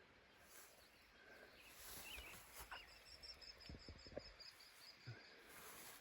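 Near silence, with a few faint bird chirps.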